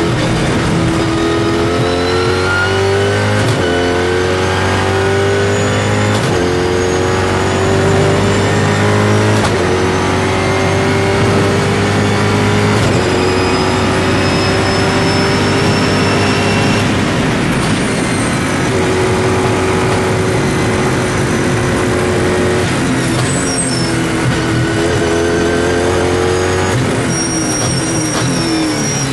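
Mosler race car's V8 engine heard from inside the cockpit under hard acceleration, its pitch climbing through each gear and dropping sharply at every upshift, four times in the first half. About three quarters through the pitch falls and wavers, then climbs again.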